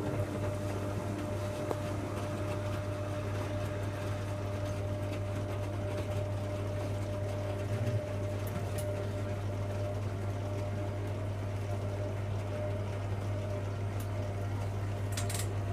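Hoover Logic A3790 washing machine's drain pump running, a steady hum with water being pumped out of the drum.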